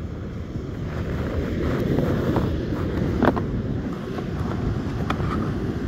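Wind buffeting the microphone, with surf breaking behind it. There is one sharp knock about three seconds in and a few lighter clicks later.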